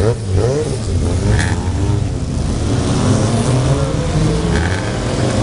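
Several classic saloon race cars' engines running together and revving as the cars pull away one after another from a standing start, a dense, overlapping engine sound with pitch rising as each accelerates.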